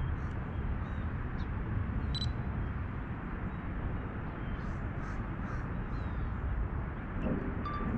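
Steady low outdoor rumble, with a bird calling faintly several times and one short, sharp high click about two seconds in.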